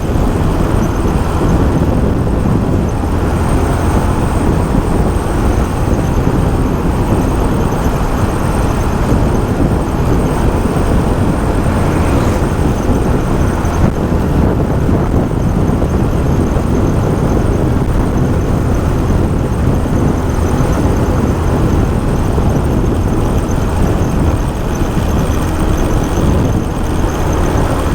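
Motorcycle being ridden at a steady pace on a highway, with engine and steady wind noise on the rider's microphone.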